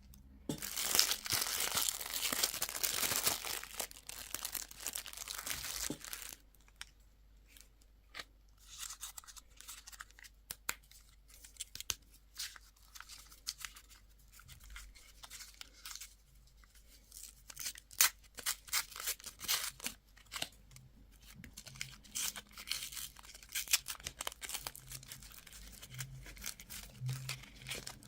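Candy wrappers being torn open and crinkled. There is a dense, continuous tearing rustle for the first six seconds or so, then intermittent crinkles and sharp clicks.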